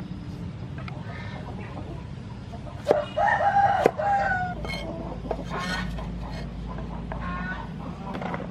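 A rooster crows once, a loud call of about a second some three seconds in, followed by shorter chicken calls. A few sharp knife chops of a cleaver on a wooden chopping board sound in between.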